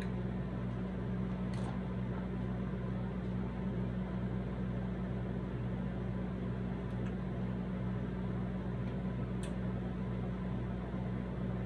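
Steady low electrical hum, with a few faint clicks as nacho chips are picked from the plate.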